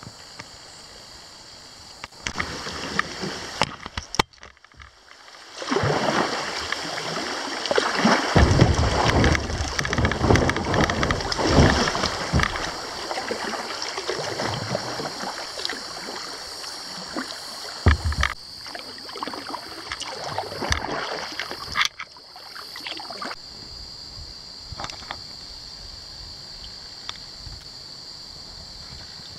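Water rushing and splashing around a kayak moving down a riffle, loud and uneven through the middle, with a few sharp knocks. Before and after it there is a quieter steady outdoor hiss.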